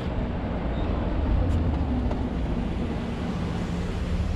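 BMW 3 Series inline-six engine running steadily at low speed, a low hum with tyre and wind noise.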